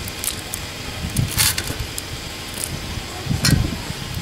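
Chopped ash gourd (petha) cubes dropped by hand into warm water in a metal kadhai, with two brief splashes about one and a half and three and a half seconds in, over a steady low rumble.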